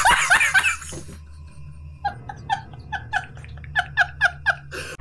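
A man laughing hard: a run of laughs that trails off about a second in, then after a short lull a quick string of about a dozen short 'ha' bursts, over a steady low hum.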